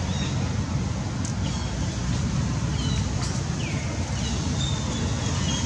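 Outdoor ambience: a steady low rumble with short, high-pitched chirps scattered through it, some briefly rising or falling.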